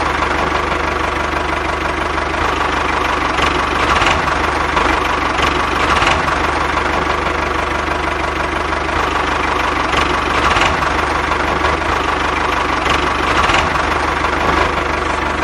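Diesel tractor engine running steadily at idle-like speed with a knocking chug.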